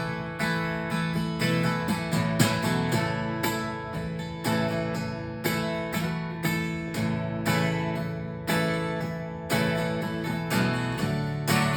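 Acoustic guitar strummed in a steady rhythm, an instrumental break in a country-western song with no singing.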